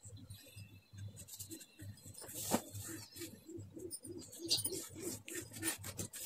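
Paper being handled and pressed flat on a tabletop, with soft rustles and small taps, over a low hum that pulses about four times a second.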